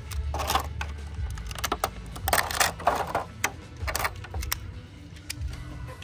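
Clear plastic blister packaging crinkling and crackling as it is handled, in a run of short irregular crackles and clicks that thin out near the end.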